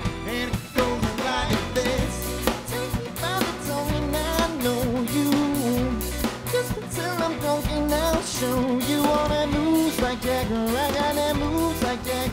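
Live band playing a song: a male singer over drum kit, electric guitar and bass.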